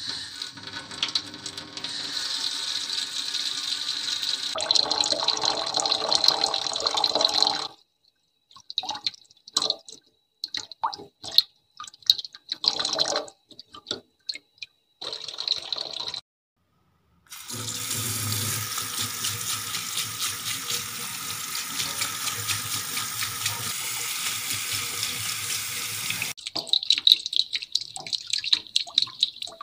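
Running tap water splashing, stopping and starting in short bursts partway through, then running steadily again, with scattered drips and splashes near the end. It is a home-made sound effect standing in for hair being rinsed.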